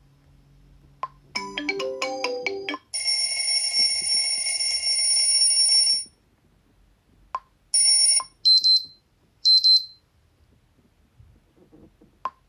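A Xiaomi Redmi 9A phone speaker playing a run of ringtone previews, each cut short. First comes a brief melodic snippet, then a steady electronic tone for about three seconds, then a short tone and two quick high chirps, with single ticks in between.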